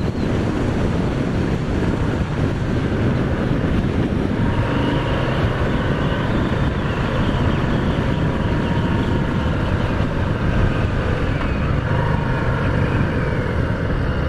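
Harley-Davidson FXDR's Milwaukee-Eight 114 V-twin running steadily at road speed with wind noise. A faint steady whine joins about four seconds in.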